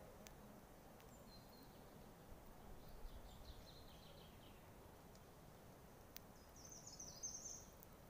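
Faint songbird chirping outdoors: a short run of quick notes about three seconds in, and a brighter, higher-pitched run near the end, over a quiet background hush.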